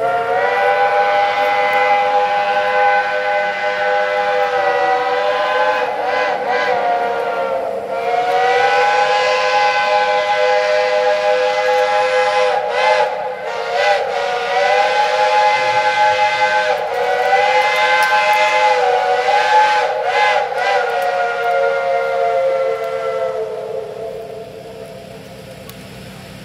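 Steam locomotive's chime whistle blowing one long, drawn-out sounding of several tones together, wavering a little in pitch, with a few brief dips and breaks, then fading away near the end.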